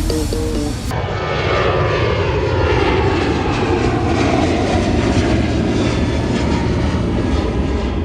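Music cuts off about a second in, giving way to a loud vehicle engine whose pitch falls over the next few seconds, as when a car passes by or comes off the throttle.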